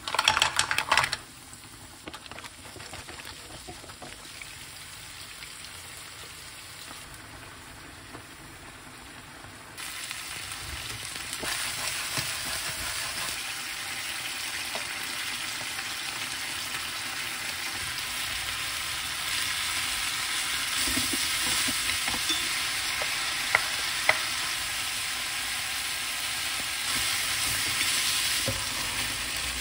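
Food sizzling in a hot frying pan: a brief loud clatter at the very start, then a steady sizzle that grows clearly louder about ten seconds in. Two light clicks come near the end.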